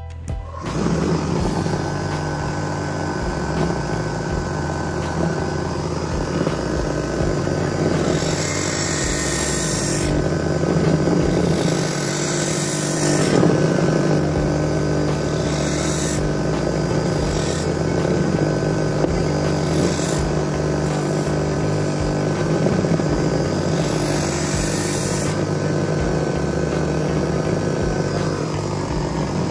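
Electric power tool motor running steadily with a constant hum. Several short, harsher hissing bursts come over it, typical of the tool working metal.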